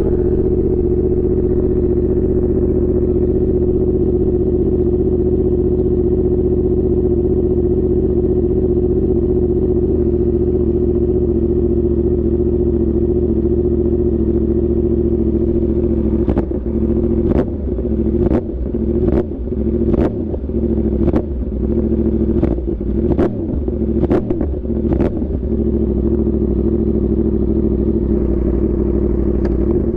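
Yamaha R1 inline-four motorcycle engine running at a steady note, then about halfway through a run of sharp cracks about once a second, the engine note dipping and coming back between them.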